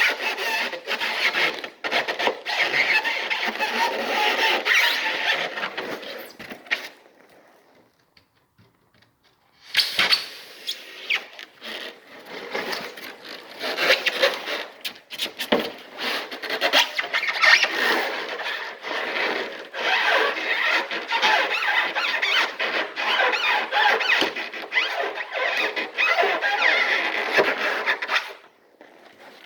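Styrofoam squeaking and rasping as a hot wire is rocked back and forth through it, stopping for about two seconds about a third of the way in, then resuming.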